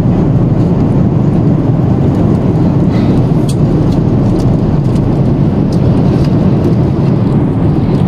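Airliner cabin noise in flight: a steady low rush of engine and airflow noise, with a few faint clicks.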